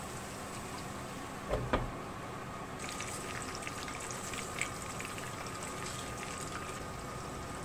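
Garlic, lemongrass and chicken frying in oil in a frying pan: a steady low sizzle with a single knock about a second and a half in, then sharper popping and crackling from about three seconds in as red spice flakes are shaken into the hot oil.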